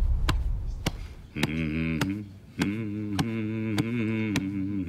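A man hums a low, wavering chant while thumping his chest with his fist, about two thumps a second.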